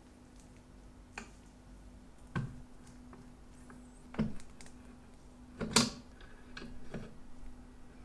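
Small metallic clicks and taps from a vise-mounted watchmaker's tool being handled with gloved fingers: about six separate knocks, the loudest about six seconds in, over a faint steady hum.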